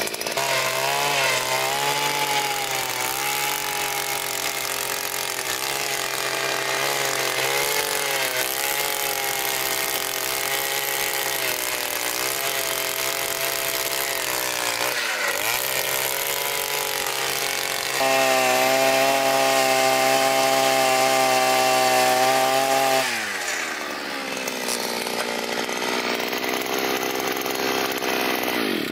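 Takyo TK-2P earth auger's 52 cc single-cylinder two-stroke engine running under load as a 15 cm bit bores into hard, stony ground, its pitch wavering as the bit bites. Past the middle it runs louder and steadier for several seconds. About five seconds before the end the revs fall away to a lower running speed.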